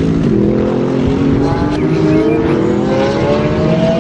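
Race car engine accelerating, its pitch rising slowly and steadily.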